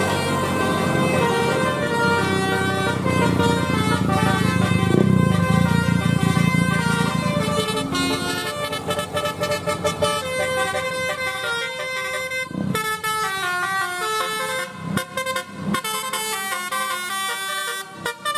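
Bus 'telolet' musical horn, a set of air horns sounded in sequence, playing a quick stepping melody of several notes at once. A low rumble sits under the first half; later the notes come shorter and choppier with brief breaks.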